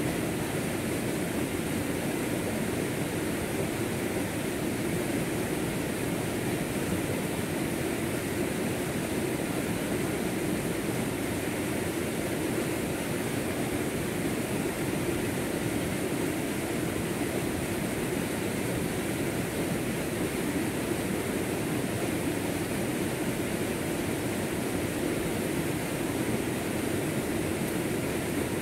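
Rocky stream rushing steadily through small rapids and over boulders, a constant even noise of flowing water.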